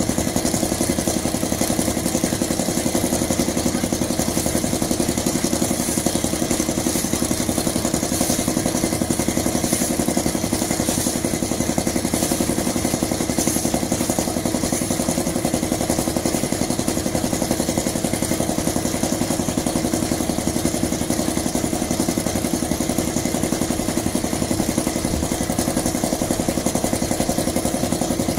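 Small engine of a concrete mixer running at a steady speed, its even drone unchanging throughout.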